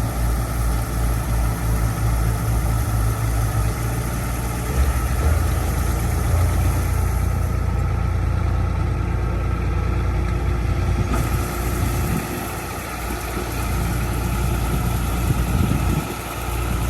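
Kubota rice combine harvester's diesel engine running steadily with a deep, even drone.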